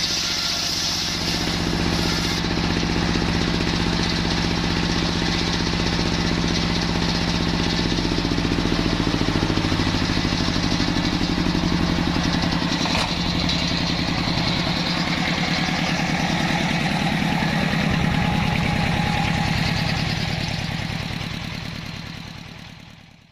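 The engine of a circular-saw sawmill running steadily, its note shifting slightly a couple of times, with a higher hiss over it; it fades away near the end.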